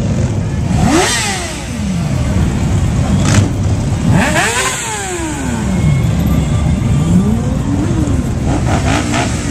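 Cruiser and touring motorcycles riding past one after another, engines revving, each bike's pitch rising and then falling as it goes by. The loudest passes come about a second in and about four and a half seconds in.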